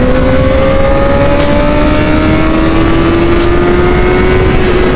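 Honda 600 cc four-cylinder motorcycle engine with its stock exhaust, pulling hard in one gear. Its high-pitched note climbs slowly and steadily in pitch, then eases down slightly near the end.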